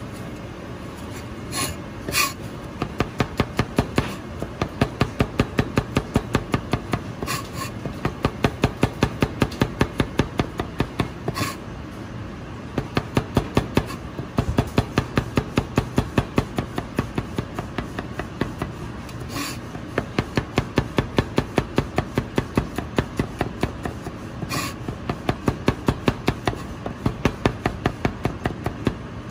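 Chinese cleaver thinly slicing garlic cloves on a cutting board: quick, even chops about four a second, in runs broken by short pauses, with a few sharper clicks now and then.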